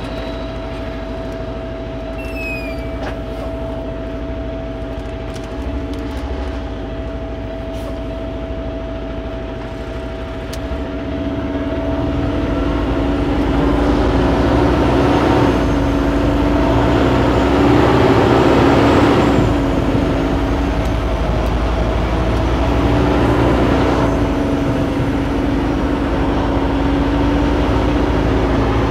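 Kenworth W900L semi truck's diesel engine running steadily as the truck drives, growing louder about eleven seconds in.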